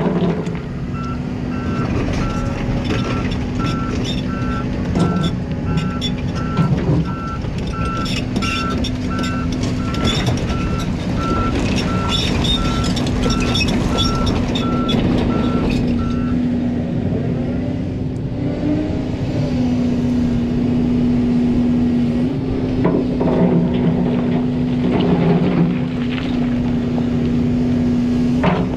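Volvo EC300EL hybrid excavator's diesel engine running steadily. Its travel alarm beeps about twice a second for roughly the first fifteen seconds as the machine tracks off the rock pile, with clanking from the tracks and rock. The beeping then stops while the engine keeps running.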